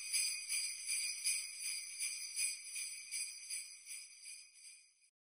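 Sleigh bells shaken in a steady rhythm, about two to three shakes a second, fading away and stopping near the end.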